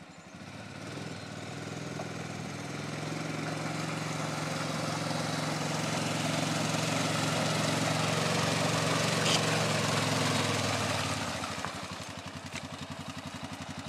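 Honda Rincon ATV's single-cylinder engine pulling slowly through deep mud and water, with water sloshing around the tyres. The engine grows louder as the quad comes closer, then drops after about eleven seconds to a quieter, lumpy idle.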